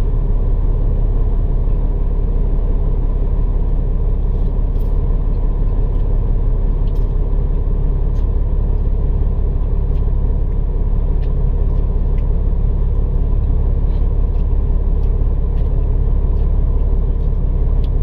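Diesel engine of a Peterbilt 379 semi truck running steadily, a constant low rumble heard from inside the cab, with a few faint ticks now and then.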